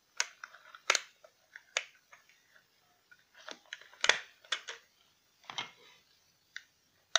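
The plastic casing of an opened laptop charger being handled and spread apart by hand: irregular sharp plastic clicks and knocks, about ten of them.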